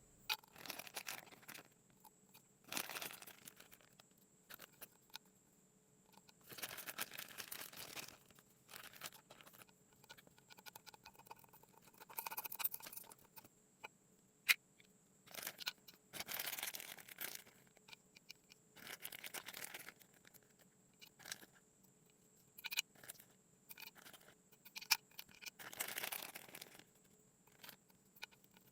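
Kinetic sand being worked by hand or tool: a series of soft, irregular scraping and crumbling sounds, each lasting about a second, with quiet gaps between them and an occasional sharp click.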